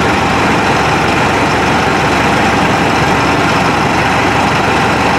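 Mahindra 8560 tractor's diesel engine idling steadily at a low idle of about 750 rpm, its mechanical injection pump's idle screw turned down from about 900 rpm.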